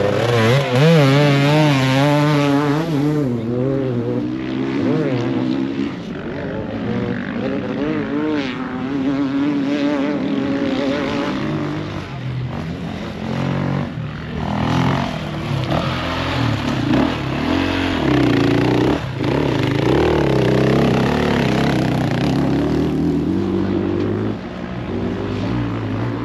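Enduro dirt bike engine revving hard close by at first, its pitch wavering, then fading after about three seconds. A more distant motorcycle engine rises and falls through the rest.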